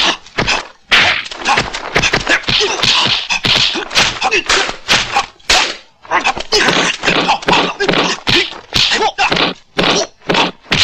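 Kung fu film fight sound effects: a rapid run of sharp punch-and-kick whacks in quick succession, with fighters' shouts mixed in and a short lull about six seconds in.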